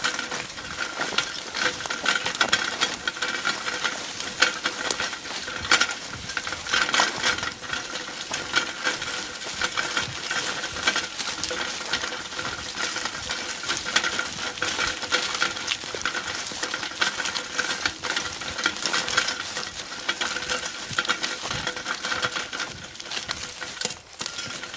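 Metal game cart rattling and clinking over rough ground as it is pushed through dry grass, a dense run of irregular metallic clicks.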